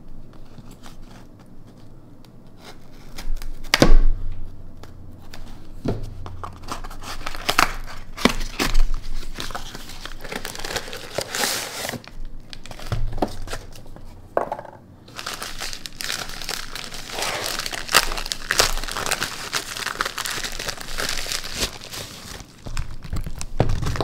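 A cardboard shipping box and a kraft paper padded mailer being torn open and handled. There is paper crinkling and tearing, with a few knocks on the table, the loudest about four seconds in. The crinkling grows dense from about a third of the way through.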